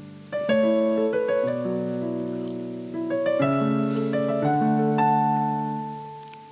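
Piano playing slow, held chords, each left to ring and fade before the next one sounds.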